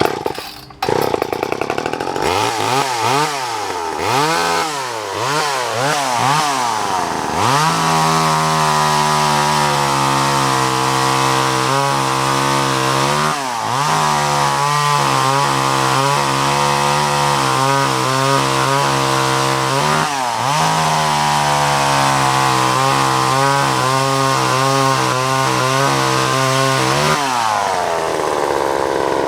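Vintage Craftsman chainsaw built by Poulan, its two-stroke engine firing up and being revved up and down several times, then held at high revs for about twenty seconds with a couple of brief dips. Near the end the throttle is let off and the revs fall away.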